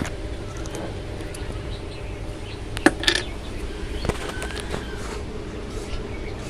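Sharp metallic clicks and knocks from sewing machine parts being handled, the loudest a little under three seconds in, over a low steady hum.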